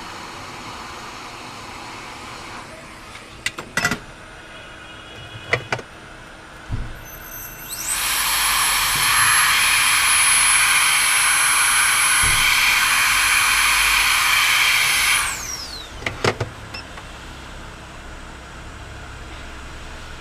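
A small high-speed electric motor with a fan spins up with a rising whine, runs for about seven seconds with a steady high whine over a loud rush of air, then winds down. A few sharp clicks come before and after it.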